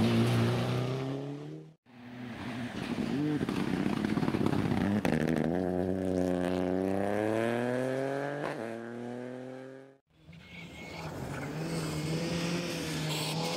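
Rally cars at speed on a gravel stage, in three short passages that break off twice. First a Mitsubishi Lancer Evolution's engine as it passes close, then a second car's engine climbing steadily in pitch under hard acceleration with a break at a gear change, then a more distant car's engine holding a steadier note.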